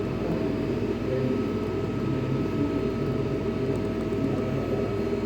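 Steady machine hum with a faint high whine, like cooling fans or air-handling running in a machine shop.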